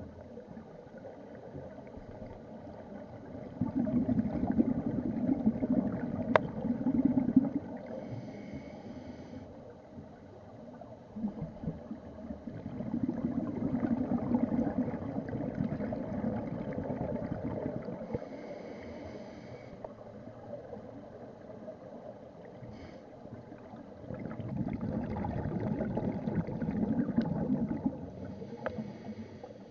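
Scuba diver breathing through a regulator underwater: three long rushes of exhaled bubbles, each followed by a short hiss of an inhale.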